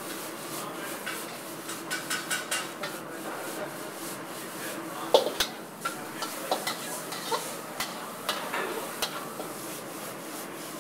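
Metal spatula scraping and clanking against a steel wok as mushrooms are stirred and tossed over a high gas flame, over a steady sizzle of frying. Irregular sharp clanks throughout, the loudest about five seconds in.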